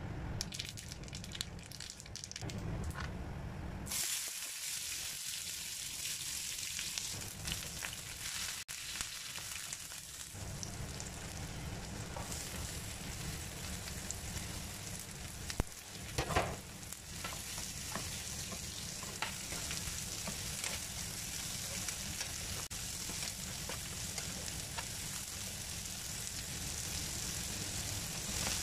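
Hot oil sizzling in a frying pan as mustard seeds, aromatics and sliced bitter gourd fry. A spatula stirs and scrapes the pan. The sizzle starts in earnest about four seconds in, and a louder scrape comes a little past the middle.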